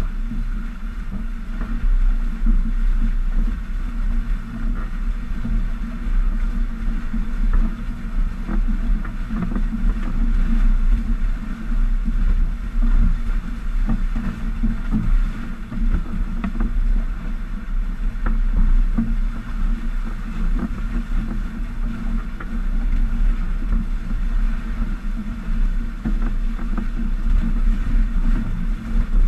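Steady wind noise on the microphone over the rush of water along the hulls of a Stiletto 27 catamaran sailing at about 9 to 11 knots.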